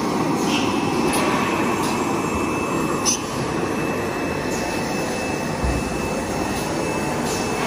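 Paper cutlery molding machine running: a steady roar of air, such as from its side-mounted ring blowers, with a faint high whine held throughout. Light clicks sound every second or two at irregular intervals.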